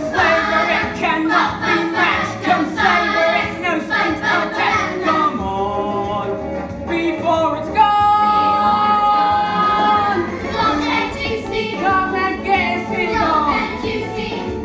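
A young solo voice singing a musical-theatre song over instrumental accompaniment, holding one long note about eight seconds in.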